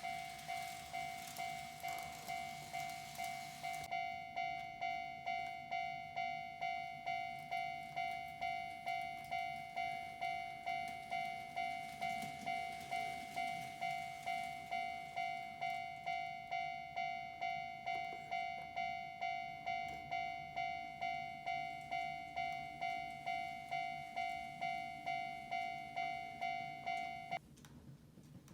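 Japanese railway level-crossing warning bell ringing in even decaying strikes about twice a second, then cutting off suddenly near the end. A faint low rumble runs beneath it.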